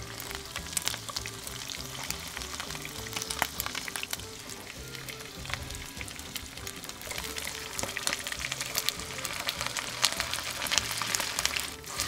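Pork loin chops' fat edge sizzling and crackling in shallow hot oil in a frying pan, the crackle growing denser later on. Background music plays underneath.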